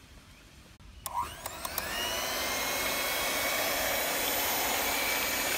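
Electric hand mixer switched on about a second in, its motor whine rising as it spins up, then running steadily. Its beaters are whisking a liquid yeast mixture in a steel bowl.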